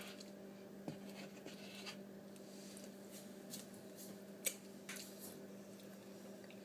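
A faint, steady electrical hum with a few light clicks and taps scattered through it, the sharpest about a second in and again past the four-second mark.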